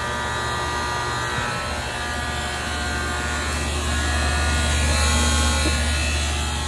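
Steady electrical buzz from the contactor in an Armstrong Air central air conditioner's outdoor condensing unit, a sign that the contactor is faulty and needs replacing. The buzz grows a little louder around four to six seconds in.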